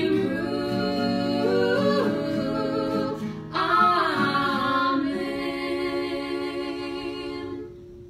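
Three women singing in close harmony to acoustic guitar, a closing phrase. They break for a breath about three and a half seconds in, then hold a final chord that stops near the end, leaving one steady note ringing faintly.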